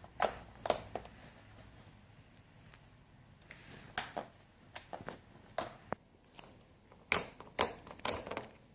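Slime being pressed and worked by hand, giving about eight sharp, crisp clicks at irregular spacing, with several coming close together near the end.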